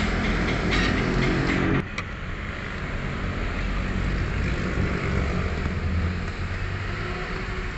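A motor vehicle engine running steadily, with a click about two seconds in, after which the sound drops suddenly in level and the hum carries on more softly.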